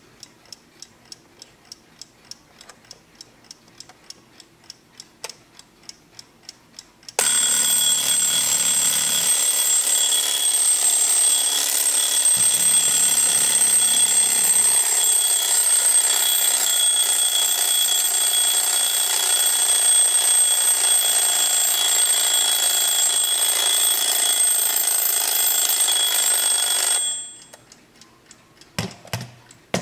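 1960s Smiths mechanical alarm clock ticking, then its alarm ringing loud and steady for about twenty seconds before cutting off. Faint ticking and a few handling knocks follow near the end.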